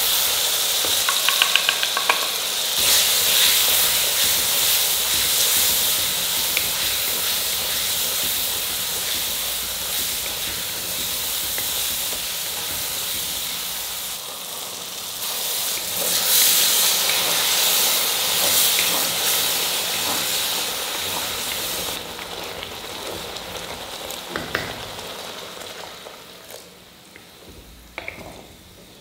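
Food sizzling in hot oil in a pan while it is stirred, with a few sharp clinks of a utensil against the pan about a second in. The sizzle gradually dies down over the last several seconds.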